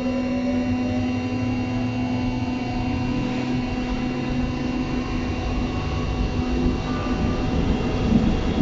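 Berlin U-Bahn train running, heard from inside the car: the electric motors' tone is still rising at the start, then holds steady over a constant rumble of the running gear.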